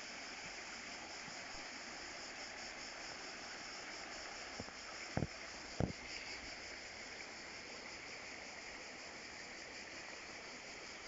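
Garden fountain water trickling and splashing steadily into a stone pool. Two short soft knocks about five and six seconds in.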